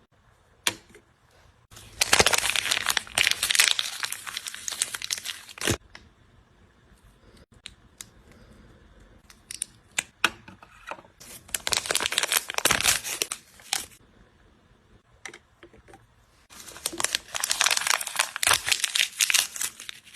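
Plastic toy packaging being crinkled and torn open by hand, in three long bouts of crackling with small clicks and taps between them.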